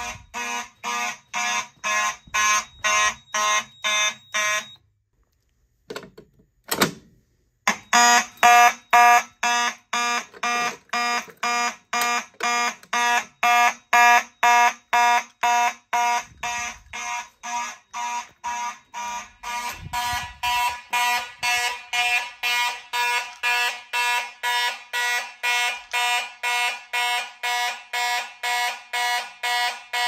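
Simplex mechanical fire alarm horns sounding in alarm in a fast, even pulse, set off by a pulled pull station. About five seconds in they cut out for roughly three seconds, with one short sound in the gap, then start again.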